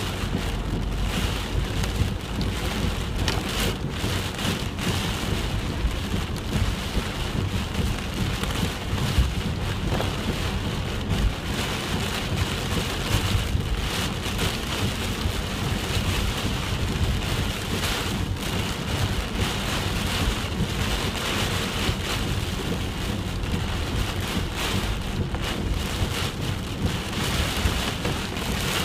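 Heavy typhoon rain pouring steadily, a dense hiss with a continuous low rumble under it.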